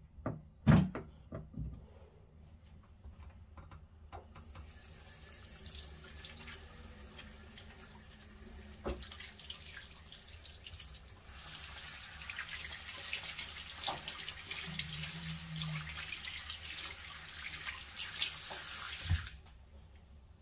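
A few sharp knocks at the start. Then a bathroom sink tap runs onto hands being washed. The flow grows louder about halfway through and is cut off sharply near the end.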